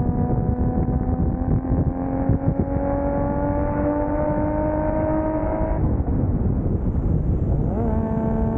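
A single-turbo 2JZ straight-six in a 1995 Toyota Soarer pulling with its revs slowly rising. About six seconds in the revs drop away for a gear change, then the engine picks up again at a lower, steady pitch, with road rumble underneath.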